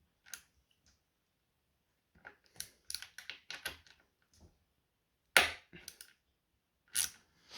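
Irregular clicks and knocks of hand tools working the scooter's bolts, a run of small clicks in the middle and a sharper clack about five and a half seconds in.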